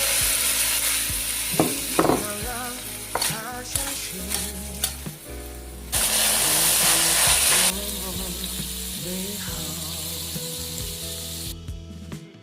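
Food sizzling as it fries in hot oil in a pan while being stirred, with a few sharp clacks of the utensil against the pan. The sizzling surges loudly at the start and again about six seconds in, then settles. A song plays faintly underneath.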